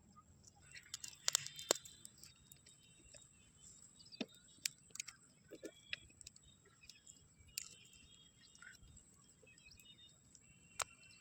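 Scattered sharp clicks and taps, the loudest cluster about a second and a half in, with faint high chirps behind them.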